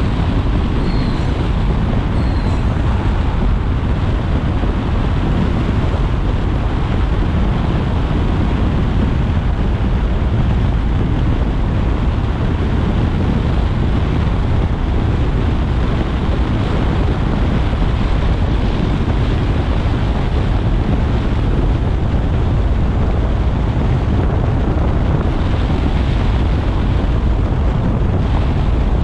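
Car driving at expressway speed on a rain-wet road: steady tyre hiss and low rumble, with wind noise on the microphone.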